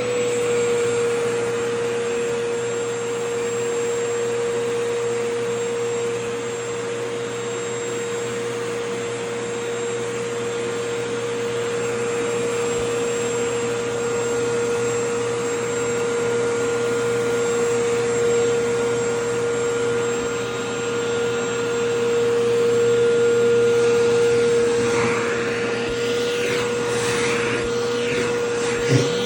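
Vacuum cleaner running steadily, its motor holding one steady whine over the rush of air, with the nozzle sucking at a skirt's fabric. Near the end, wavering whistles come and go in the airflow.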